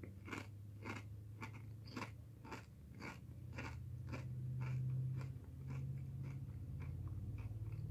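Person chewing a crunchy Doritos Blaze tortilla chip with the mouth close to the microphone: a steady run of crisp crunches, about two a second, growing softer and sparser toward the end as the chip breaks down.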